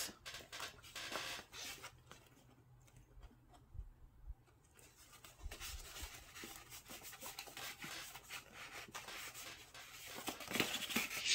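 Cardstock paper rustling and scraping lightly as the pieces of a paper box are handled and pressed together, in scattered short strokes with a quieter stretch a little after the start and busier handling near the end.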